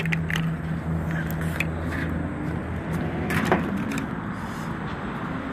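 A vehicle engine idling steadily, with scattered knocks and clatters over it; the loudest knock comes about three and a half seconds in.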